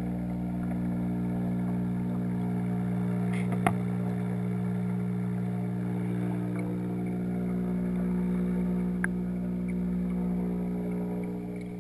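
Steady electric hum of an aquarium pump motor, heard through the water inside a waterproof camera housing, with two light clicks about four and nine seconds in. The hum fades near the end.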